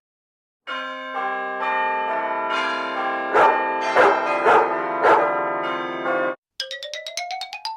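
Played-back sound effects: a run of bell-like chime tones sounding one after another and holding on, with four short dog-like barks over them in the middle. After a brief gap comes a rapid clicking tone that rises steadily in pitch.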